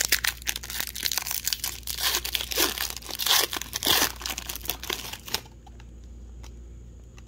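A plastic trading-card pack wrapper being torn open and crumpled in the hands: dense crinkling and tearing that stops suddenly about five seconds in.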